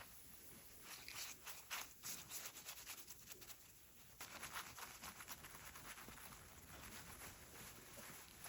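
Faint scratchy rubbing in quick uneven strokes from about a second in, turning into a steadier rubbing from about four seconds in.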